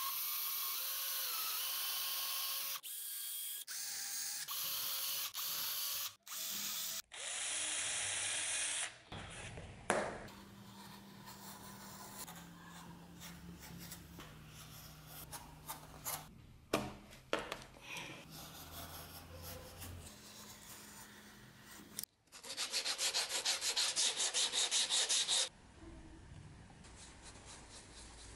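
Leatherworking in quick succession: a Metabo cordless drill running in short spurts as it bores stitching holes through leather, then quieter scraping and a few clicks of leather being trimmed with a knife. Near the end comes a few seconds of fast, even rubbing strokes on the leather.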